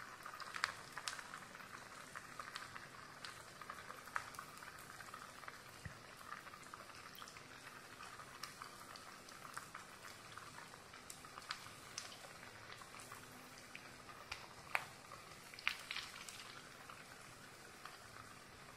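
Potato smileys deep-frying in hot oil in a wok: a faint, steady sizzle with scattered sharp pops and crackles.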